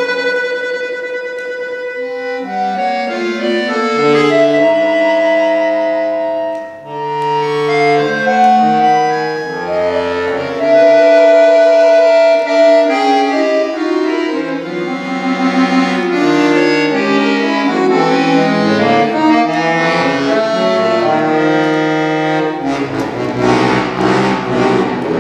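Solo accordion playing a contemporary piece. It opens on a single held note, then moves through shifting chords and lines in several voices, with a brief drop almost to a break about seven seconds in. Near the end it plays a dense cluster chord that pulses rapidly.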